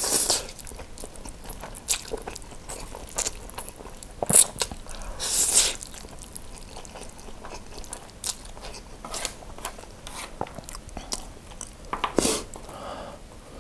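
Close-miked slurping and chewing of thick spicy noodles: loud wet slurps at the start, twice around five seconds in and again near the end, with smacking chewing clicks between them.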